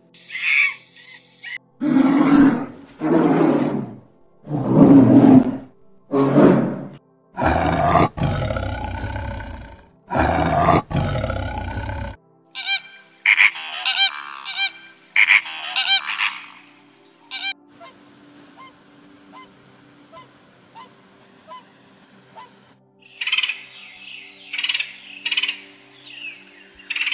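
A run of different animal calls. Several loud, drawn-out calls fill the first half, then comes a cluster of short, high honking calls, a quieter stretch, and more short high calls near the end.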